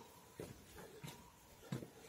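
Faint footsteps on a concrete street, a few soft steps at walking pace.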